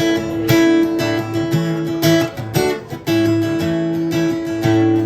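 Acoustic guitar strummed, playing the instrumental introduction to a song; chords ring with a strum every half second or so and no singing yet.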